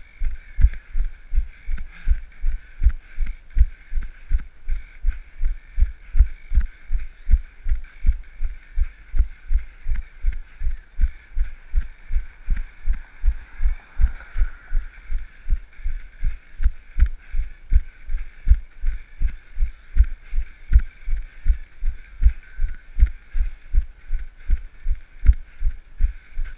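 Running footfalls jolting a hand-held camera: an even rhythm of low thumps, a little under three a second, over a steady hiss. About halfway through a car passes with a brief swell of road noise.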